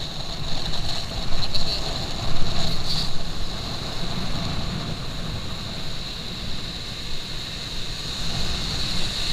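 Strong wind buffeting the microphone over sea water lapping, with a steady high-pitched whine throughout and a few louder gusts in the first few seconds.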